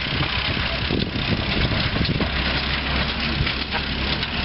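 1918 Nash Quad's original 28.9 hp four-cylinder engine running flat out while the truck drives at about 15 mph, a steady low drone with irregular sharp knocks over it.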